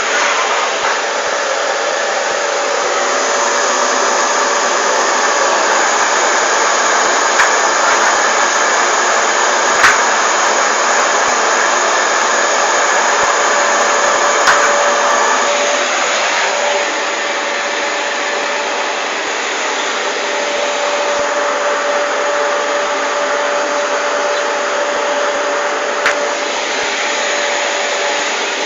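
Vacuum cleaner running steadily with a constant whine, its level dipping a little about two-thirds of the way through, with a few short sharp knocks.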